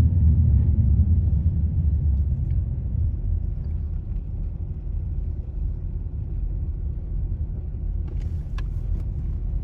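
Steady low road rumble of a car driving on a highway, heard from inside the cabin. A few sharp clicks come near the end.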